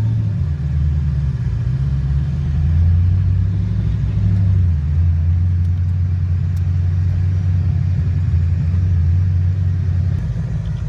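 LS1 V8 engine of a swapped BMW 318ti running at low revs, a steady low rumble that lifts slightly in pitch early on and then settles.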